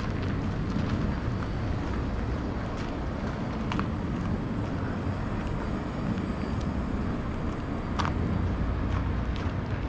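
Steady low rumble of city street traffic, with a couple of sharp ticks about four and eight seconds in.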